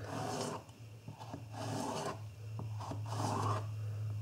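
Spyderco Native 5 folding knife slicing through a red bell pepper on a plastic cutting board: about three drawn, rasping cuts roughly a second apart. A steady low hum runs underneath.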